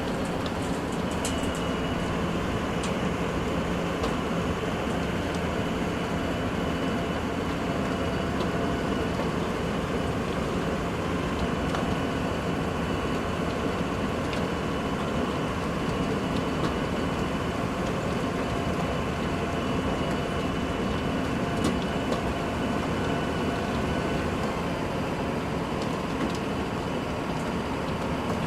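Heavy construction vehicle engine running steadily, a constant mechanical drone with a faint high whine above it and a few light clicks.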